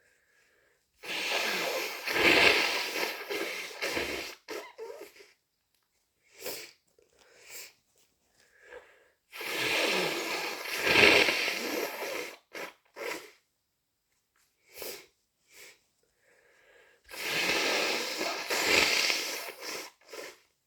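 A person with a head cold blowing their nose hard and wet three times, each blow about three seconds long, with short sniffles in between.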